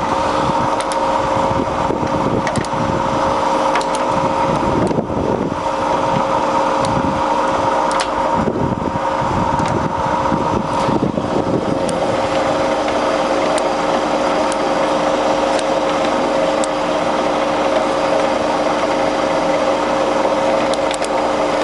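Baoji BJ-1640GD centre lathe running under power, a steady mechanical hum with a few held tones. One tone drops out briefly about five seconds in, and another fades for a few seconds around the middle.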